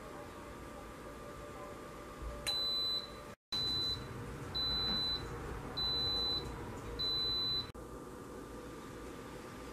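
Instant Pot IP-DUO electric pressure cooker beeping five times, high electronic beeps about a second apart, as the cooking cycle ends and the cooker switches to keep-warm.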